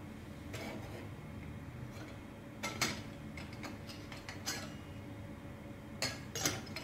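Metal lid of a camping pot clinking against the pot's rim as it is pressed down and then lifted by its handle: a pair of light clinks about halfway through, another a little later, and two sharper ones near the end.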